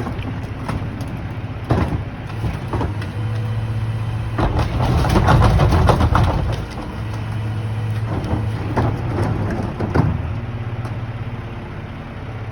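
Mack LR McNeilus rear-loader garbage truck running, with repeated clanks and knocks and a loud clattering stretch of a couple of seconds about halfway through.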